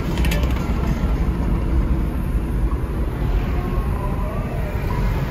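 Low, steady rumble of vehicle engines, with a short crackle of clicks just after the start.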